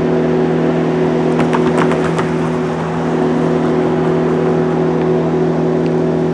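A steady engine drone of several held low tones, unbroken and even in level.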